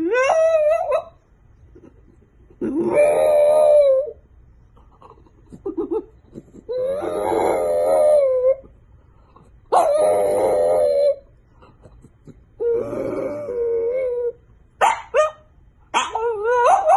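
A dog howling over and over: about six drawn-out howls with a wavering pitch, each a second or two long with short pauses between, and a few short yips near the end.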